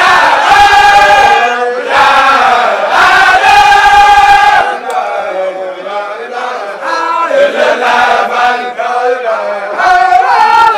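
A group of voices chanting together, long melodic lines held and bending up and down, easing off for a moment midway.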